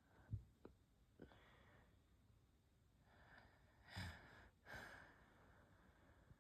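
Soft breathing and sighing of a person with hiccups, with a sudden short catch about four seconds in followed by a breathy exhale.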